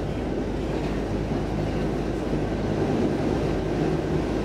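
Stockholm Metro C14 train running at speed through a tunnel, heard from inside the car as a steady rumble of wheels on the rails.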